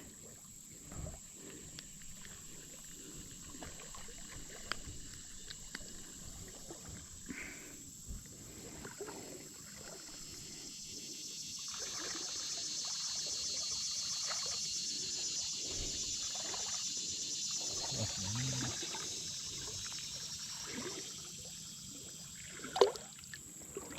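Quiet creek-side ambience: water trickling and lapping with small scattered splashes. Insects buzz in a high drone that swells for several seconds in the middle. A sharp click comes near the end.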